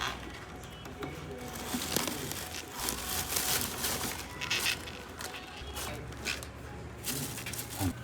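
Plastic wrapping tape crinkling and rustling in irregular bursts as it is wound around an air conditioner's copper refrigerant pipes, over background music.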